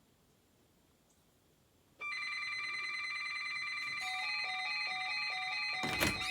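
Emergency Alert System alert signal: a loud, steady electronic tone starts abruptly about two seconds in, and about two seconds later a lower tone joins, stepping on and off several times a second, with a sharp click near the end.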